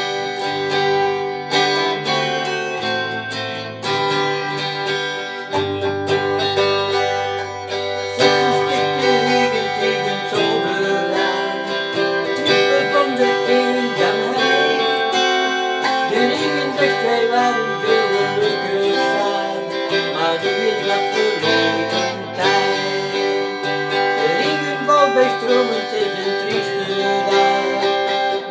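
Instrumental intro of a slow song played live: guitar chords ring over held bass notes that change every couple of seconds.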